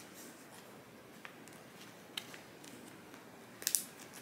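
Plastic zip-top bag being pressed shut by hand: a few faint clicks and a brief plastic crinkle near the end.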